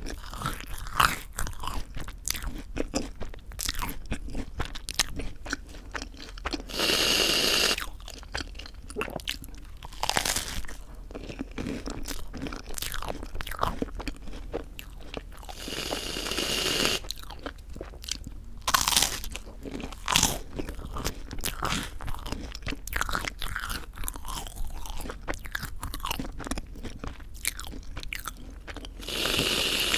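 Close-miked crunching and chewing of crisp toasted white bread. Three times, about a second each, an aerosol can of whipped cream hisses as it is sprayed.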